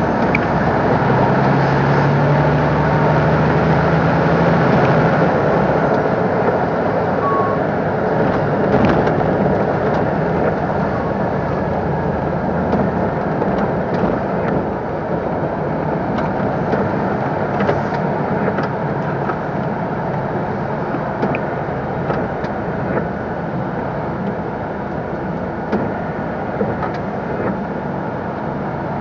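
MAN TGS 26.320 truck driving along a road, heard from inside the cab: a steady diesel engine drone and tyre noise. A low engine note stands out in the first few seconds, and small clicks and rattles come through now and then.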